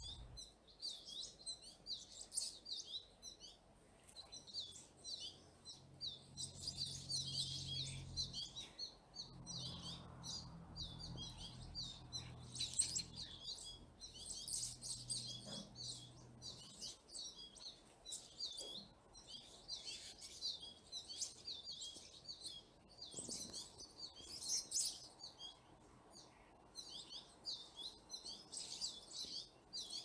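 Small songbirds chirping, many short high calls in quick succession with a few brief lulls.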